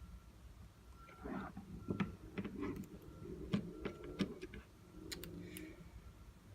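A string of light clicks and taps from handling a phone and its small parts on a work surface. They run from about a second in to near the end, with a faint steady hum underneath.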